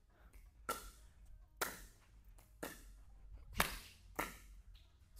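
Pickleball rally: about five sharp pops of paddles striking the hollow plastic ball, roughly a second apart, each with a short echo in a metal-walled indoor court.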